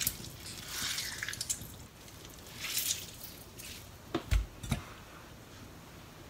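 Water dripping and splashing into a stainless steel sink as soaked kanpyo (dried gourd strips) are squeezed out by hand, in short bursts. Two dull knocks a little after four seconds in.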